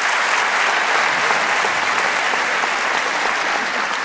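A large audience applauding, a steady dense clapping at the close of a talk.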